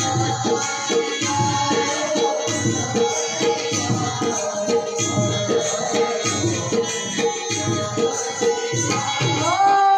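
Instrumental devotional music: a steady tabla or hand-drum beat under sustained melody notes, with one note sliding up in pitch near the end.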